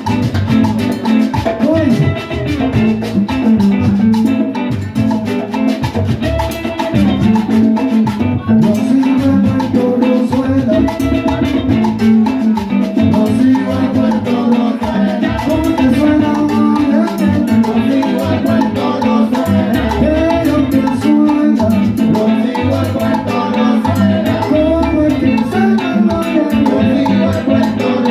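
Salsa band playing a full ensemble arrangement with a steady beat.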